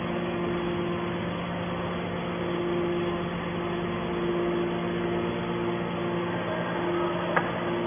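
Aluminum can baler running with a steady machine hum, a higher tone in it coming and going, and one sharp click near the end.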